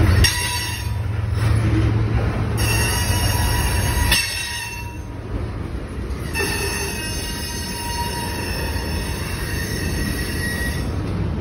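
Freight train's covered hopper cars rolling past with a steady low rumble, the wheels squealing in long high-pitched stretches that come and go.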